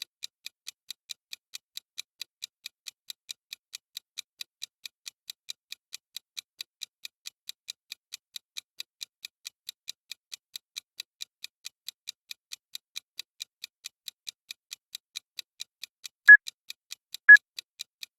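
Timer sound effect ticking like a clock, a light high tick about four times a second. Near the end, two short loud beeps a second apart sound over the ticking: the countdown beeps of the timer's last seconds.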